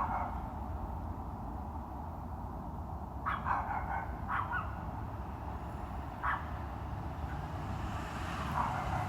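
A dog barking a few times, in short sharp barks about three, four and six seconds in, over a steady low rumble. Near the end a road vehicle's hiss rises as it approaches.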